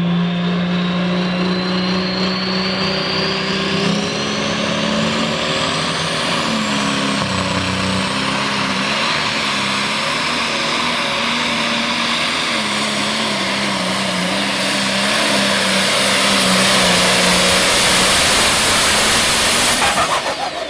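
Open-class pulling tractor's engine at full power pulling a weight-transfer sled, with a high whine rising steadily over the first several seconds. The engine note steps up early and then wavers up and down as the tractor loads against the sled, getting louder toward the end.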